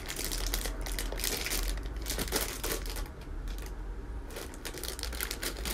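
Plastic packaging crinkling and rustling as it is handled by hand, in a run of quick crackles that eases off for about a second just past the middle before picking up again.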